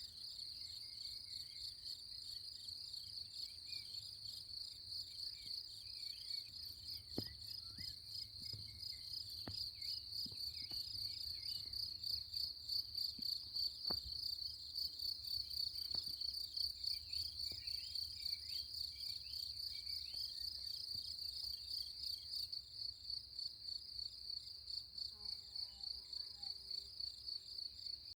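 A cricket singing a continuous, rapidly pulsing high trill, with faint bird chirps in the background.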